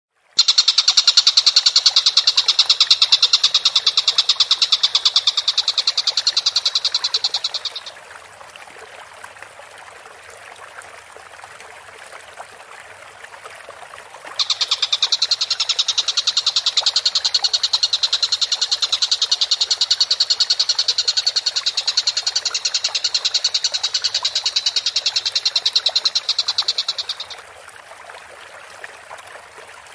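Tengkek buto, a kingfisher, singing a long, rapid, high-pitched trill of even, fast-repeating notes for about eight seconds. After a pause with only faint hiss, a second trill starts around the middle and runs for about thirteen seconds.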